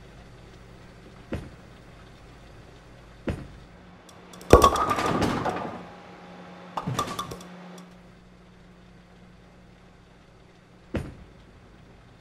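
A few sharp knocks, spread out, and a louder clattering with a ringing, metallic edge in the middle, over a steady low hum.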